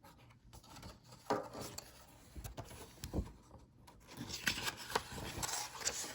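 Paper rustling and rubbing as the pages of a picture book are handled and turned, with a couple of soft knocks about one and three seconds in.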